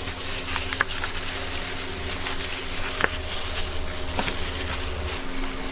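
A steady low mechanical hum under even background noise, with a few light clicks. The hum stops shortly before the end.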